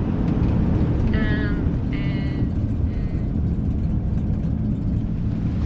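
Steady low road rumble of a vehicle in motion, heard from inside. In the first half, three short high-pitched tones come about a second apart.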